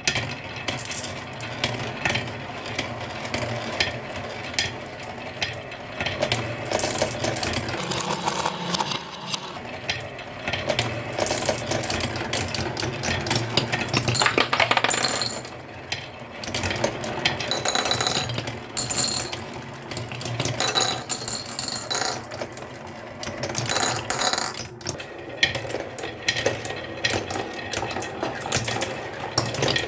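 Marbles rolling and clattering down a wooden marble run: a steady low rolling rumble under many quick clicks and knocks as they hit the track pieces and each other, busiest in clusters in the second half.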